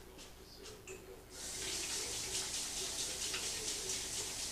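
Kitchen sink faucet turned on about a second and a half in, water running steadily into the sink as hands are washed.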